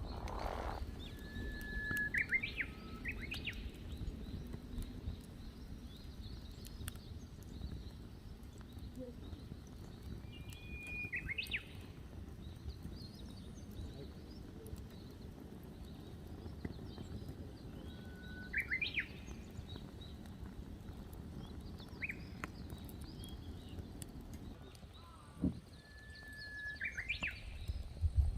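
A songbird singing four times, about every eight seconds: each phrase is a held whistle followed by a quick rising flourish, over a steady low background hiss with faint scattered clicks.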